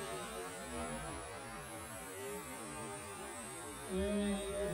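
Several 1:10 electric RC touring cars racing together, their motors whining, each pitch rising and falling as the cars accelerate and brake, so the whines overlap and cross. Near the end a louder, steadier pitched sound comes in on top.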